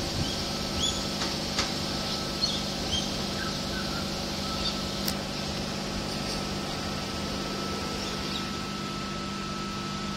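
Steady low hum of a Sydney Trains Tangara electric train pulling away, fading slightly as it recedes, with a faint steady whine over it. Repeated short bird chirps sound throughout.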